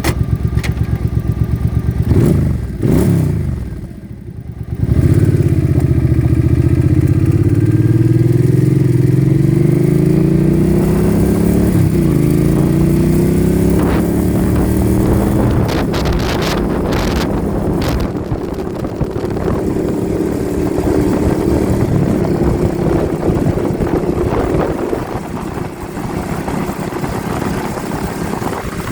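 Motorcycle engine pulling away: its pitch drops for a moment about four seconds in, then climbs through the gears and settles into a steady cruise. Wind buffets the phone's microphone throughout, with a few sharp crackles past the middle.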